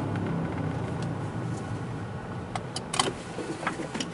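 2008 Toyota Tacoma's engine and road noise heard from inside the cab, a steady low hum that eases off as the truck slows under braking. A few light clicks come about three seconds in.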